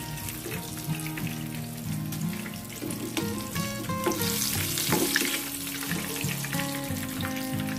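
Tapioca-coated tofu deep-frying in hot oil, a steady sizzle with fine crackling that swells about four to five seconds in. Background music plays over it.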